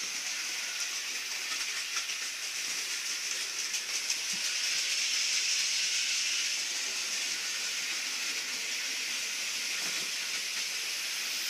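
Model train running on the layout's track: a steady, high hissing whirr with faint rapid clicking in the first few seconds.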